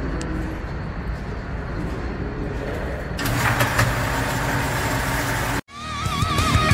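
Steady low mechanical hum and noise that grows louder about three seconds in, with no gunshots, then cuts off abruptly near the end into rock intro music that opens with warbling tones.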